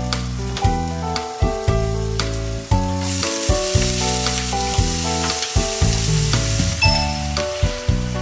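Sliced wieners with onion and carrot sizzling in hot oil in a frying pan as they are stir-fried, the sizzle loudest from about three seconds in to about seven. Background music plays throughout.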